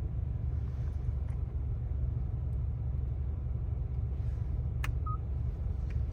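Steady low rumble of a car's road and engine noise heard from inside the moving car. About five seconds in there is a sharp click and a short electronic beep.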